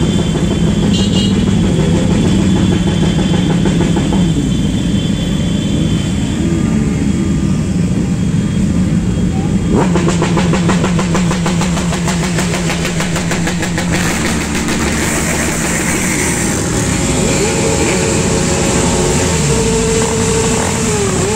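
Motorcycle engines running in a slow group ride: a steady idling drone, a bike's exhaust pulsing rapidly in the middle, and engines revving up and back down near the end.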